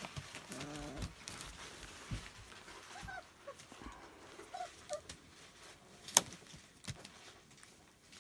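Puppies whimpering in short, high squeaks, with a few sharp knocks, the loudest about six seconds in.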